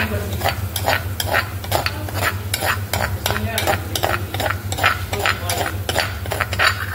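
A spoon stirring and scraping around a cooking pan in quick strokes, about three a second, while a tadka of spices sizzles in hot oil. A steady low hum runs underneath.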